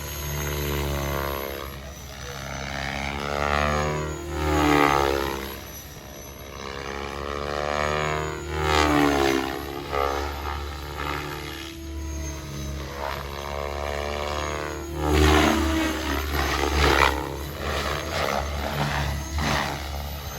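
KDS A5 electric RC helicopter flying 3D manoeuvres: the rotor and brushless motor whine, their pitch swooping down and back up again and again as the heli passes and is thrown around. Loud rotor whooshes come several times.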